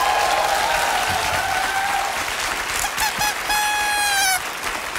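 Studio audience applauding while paper party horns toot in wavering notes. About three and a half seconds in, one party blower gives a single steady blast lasting just under a second.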